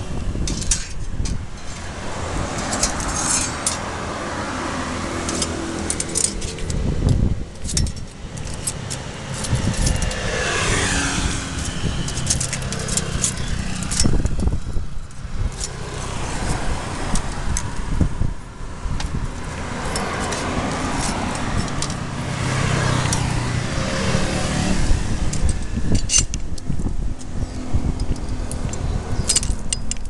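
Stainless steel banding strap and its buckle clinking and rattling as they are handled and wrapped around a post, with cars passing in the background.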